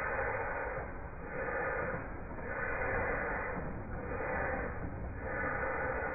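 Model steam locomotive puffing as it runs slowly along the track: soft hissing chuffs that swell and fade about once a second, over a steady low rumble.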